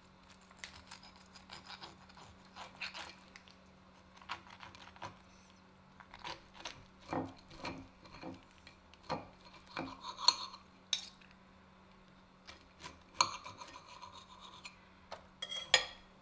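Knife and fork cutting on a ceramic plate: scattered scrapes and clicks of the metal cutlery against the plate, with short, sharper scrapes of the blade, the loudest about ten and thirteen seconds in.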